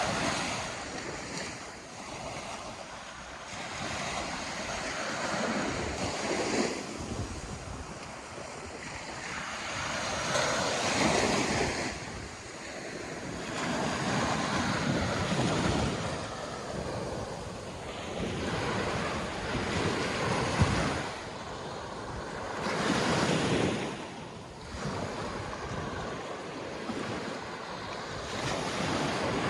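Waves breaking on a sandy beach, the surf swelling and falling back every few seconds, with some wind on the microphone.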